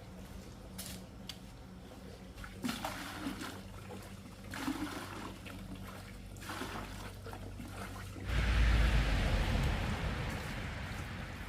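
Water splashing a few times, then poured in a steady rushing stream from about eight seconds in, the loudest part.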